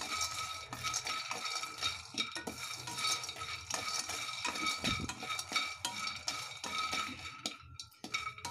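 Peanuts and dry coconut pieces rattling and scraping in a non-stick kadai as a wooden spatula stirs them, dry-roasting until golden. The stirring comes as a quick run of clicks and scrapes.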